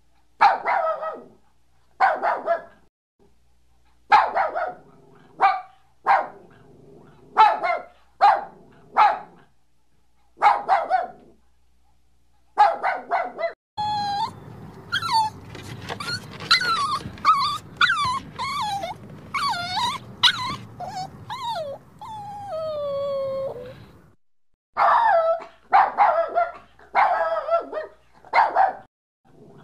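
A dog barking in short single and paired barks. For about ten seconds in the middle it whines and whimpers, its pitch wavering up and down over low background noise, and this ends in a long falling whine. Quick barking starts again near the end.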